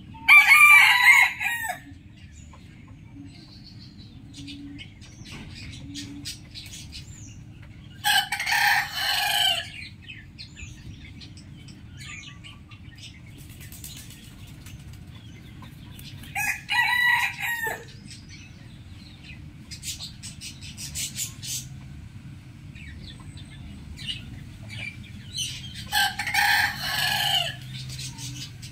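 Rooster crowing four times, each crow lasting a second and a half to two seconds, about eight seconds apart. Faint clucks and chirps come in between.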